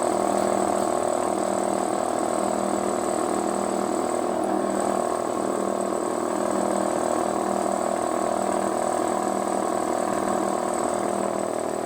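G.G.A 3 hp piston air compressor running steadily under load, pumping up its 200-litre tank: a continuous motor hum with the pump's even chugging.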